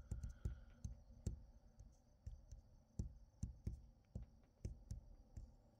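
Soft, irregular knocks and taps, about three a second, over a faint steady high hiss.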